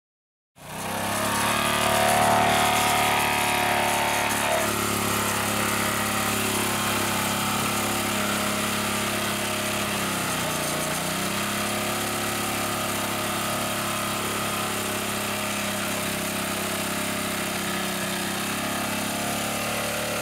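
Small 212 cc OHV single-cylinder engine fitted with a GEET fuel processor, running steadily. About ten seconds in its speed sags briefly and picks back up.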